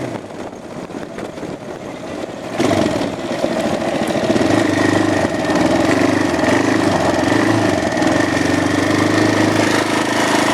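2003 Suzuki LTZ400 quad's single-cylinder four-stroke engine being ridden. It runs low and quieter at first, then opens up sharply about two and a half seconds in and pulls steadily under throttle.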